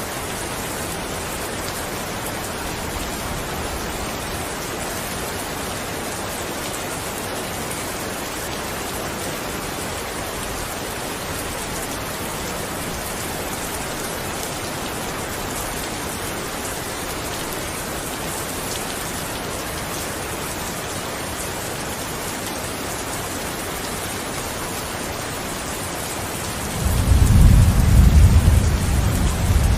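Steady, even rain falling. Near the end a deep rumble of thunder comes in and becomes the loudest sound.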